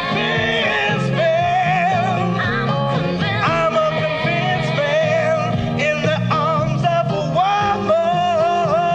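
Rock song playing: a wavering melody line over a steady band backing, with no words.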